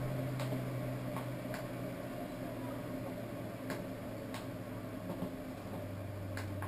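A steady low mechanical hum with a few faint, scattered clicks; the hum drops slightly in pitch near the end.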